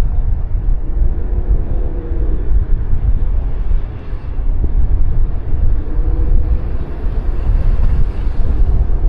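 Wind buffeting the microphone and road noise from a moving bike, a heavy rumble with a faint hum that rises and falls in pitch.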